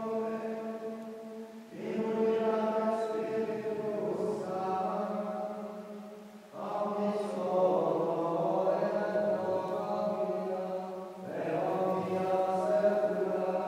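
Gregorian chant in Latin sung in a low male register, in long sustained phrases broken by short pauses about every four to five seconds.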